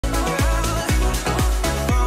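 Background dance music with a steady beat, a kick drum about twice a second under held synth tones.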